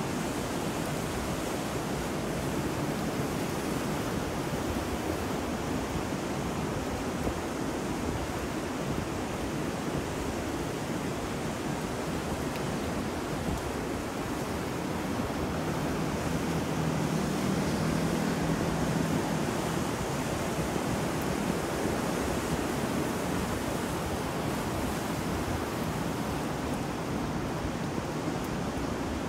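Ambience mix of ocean surf with rain and wind: a steady rush of noise that swells a little about halfway through.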